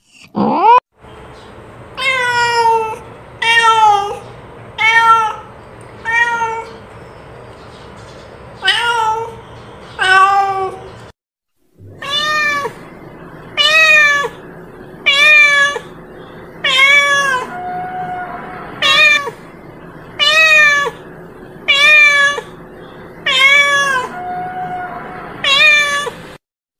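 Domestic cat meowing over and over: short meows that rise and fall in pitch, about one every second and a half, in two runs split by a brief silent break about eleven seconds in.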